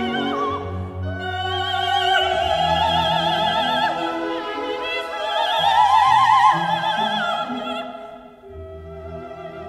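Background music: operatic singing with strong vibrato over an orchestra, the sung notes swelling about six seconds in and fading near the end.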